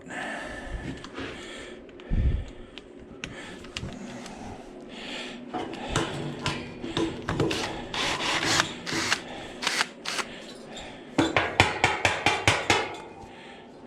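Hand tools working on the sheet-metal body of an old air-conditioner condenser unit being taken apart for scrap: a dull thump about two seconds in, then scraping and a run of sharp metallic clicks and taps, thickest near the end.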